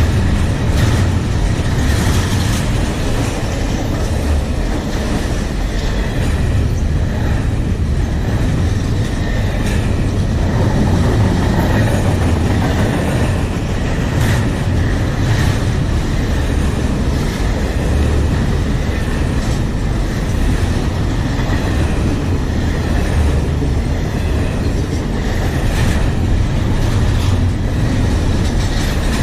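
A freight train's cars rolling past at close range: a steady loud rumble with irregular clicks of wheels over rail joints.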